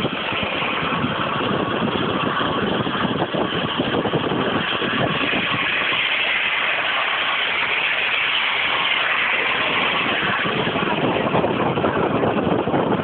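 Steady road and wind noise from a car driving at speed on a motorway.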